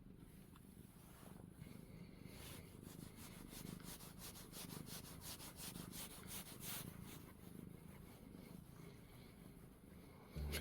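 Domestic cat purring faintly and steadily, while a grooming brush sweeps through its fur in quick, regular strokes, about three a second, for several seconds in the middle.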